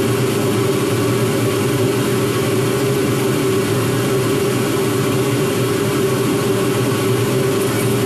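Laser engraver's exhaust fan running with a loud, steady hum and rush of air. Near the end, a rapid even ticking joins in as the laser head starts to travel.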